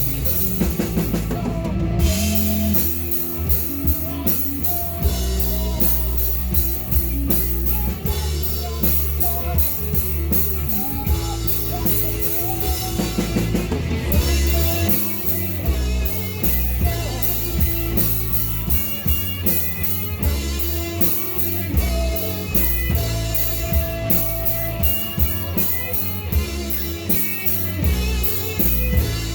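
Live rock band playing a song: a drum kit beating a steady rhythm under guitars and bass.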